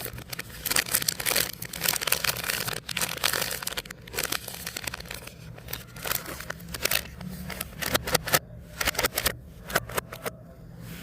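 Plastic biscuit and chocolate wrappers crinkling and rustling as they are handled and opened: a dense crackle for the first half or so, thinning to scattered sharp crackles near the end.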